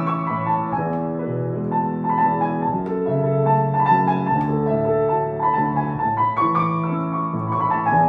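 Background piano music: a slow, gentle melody of held notes.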